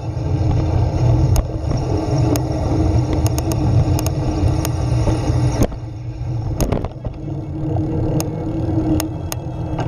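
Steady low rumble of wind and road vibration on a camera mounted on a moving recumbent trike, with a dozen or so sharp knocks and rattles as the wheels roll over cracks and bumps in the asphalt.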